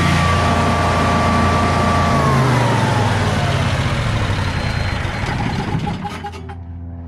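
Generac Guardian 16 kW standby generator's engine running under a load of close to 6,000 watts, without hesitating. A high whine on top of it glides down in pitch from about two seconds in, and the overall sound gets quieter about six seconds in.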